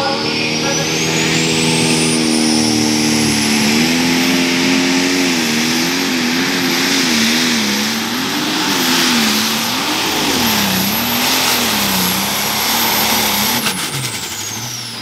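Light pro stock pulling tractor's turbocharged diesel engine at full throttle under load, with a high turbocharger whistle that climbs over the first few seconds and then holds. The engine's pitch wavers up and down. Near the end the throttle is cut and the whistle and engine note fall away.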